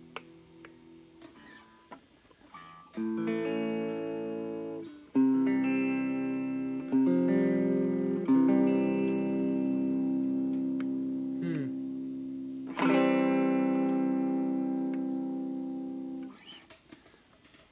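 1964 Fender Telecaster electric guitar played through an amplifier: after a few light ticks, about five chords are struck and left to ring out, with a short pitch bend partway through. The last chord is cut off near the end. The guitar's tone knob has no effect on the sound after its control panel was rewired.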